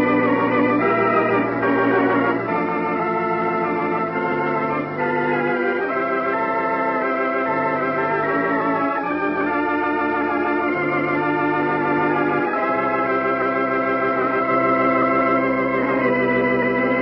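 Organ music: slow, sustained chords with a wavering vibrato, changing every second or two.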